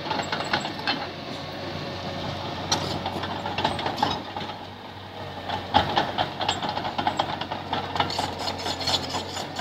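Small crawler bulldozer working in loose sand: its diesel engine runs steadily while the steel tracks clatter, with irregular sharp metallic clanks from the tracks and blade.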